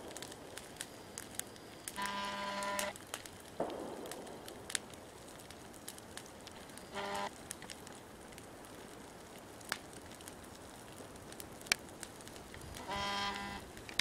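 Wood campfire crackling with scattered sharp pops, and three times a short, steady, horn-like toot.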